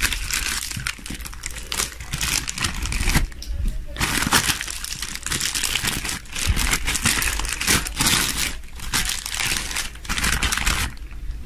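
Clear plastic wrap crinkling and rustling as it is peeled and pulled away from a lump of chilled cookie dough by hand, in irregular spells with a short pause about three and a half seconds in.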